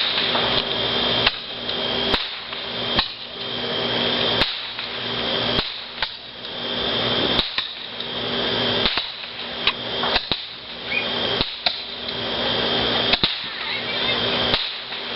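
Fireworks going off: a sharp bang roughly every second to second and a half, about a dozen in all, with a hissing, crackling wash that swells between the bangs.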